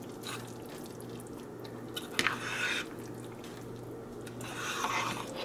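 Metal spoon stirring thick, creamy chicken and dumplings in a slow-cooker crock: soft wet squelching, with a short scrape about two seconds in and another squishy stir near the end.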